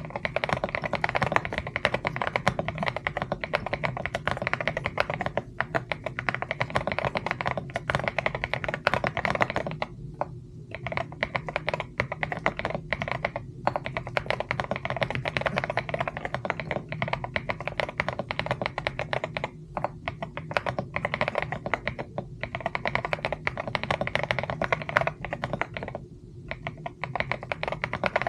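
Mechanical keyboard being typed on fast, a dense run of key clicks with a few short pauses.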